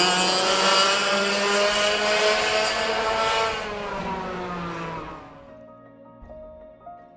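Racing kart engine running at speed on a wet track, its pitch gently falling over a hiss, then fading away about five seconds in. Soft music continues after it.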